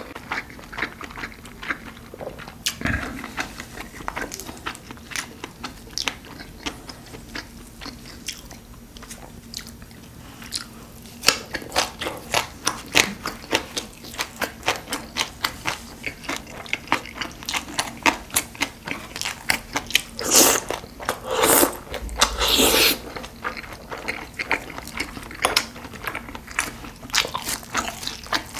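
A person chewing and biting mouthfuls of food, a stream of quick mouth clicks that grows denser about a third of the way in, with a few louder, longer chews about two-thirds of the way through.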